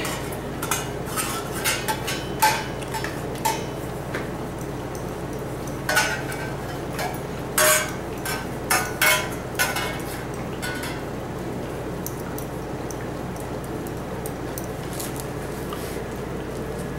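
Stainless steel dog bowls clinking and knocking together as a dog licks them clean and nudges them about. The clinks come irregularly and stop about ten seconds in.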